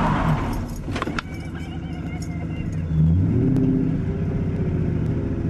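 Ford Mustang's engine heard from inside the cabin on a twisty road: the revs fall away as the throttle lifts, with a couple of sharp clicks about a second in. About three seconds in the engine comes back on the throttle and pulls steadily again.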